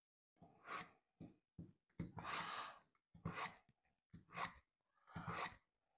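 Knife blade drawn again and again through a Smith's mini pull-through sharpener: a quick run of about seven short scraping strokes, roughly one a second or faster.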